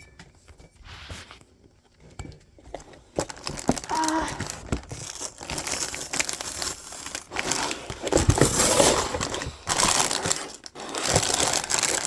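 LEGO set packaging being handled: crinkling and rustling with scattered sharp clicks. It starts about three seconds in and grows louder toward the end.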